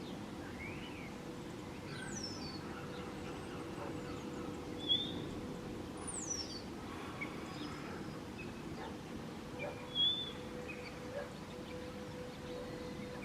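Wild birds giving scattered short chirps, two of them quick falling calls, over a steady low outdoor rumble and a thin steady mid-pitched tone.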